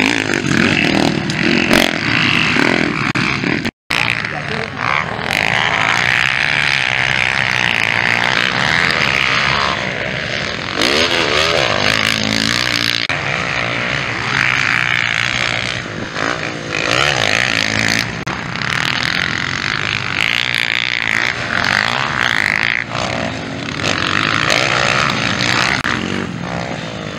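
Motocross dirt bike engines running and revving up and down as the bikes ride the track, with a short gap in the sound about four seconds in.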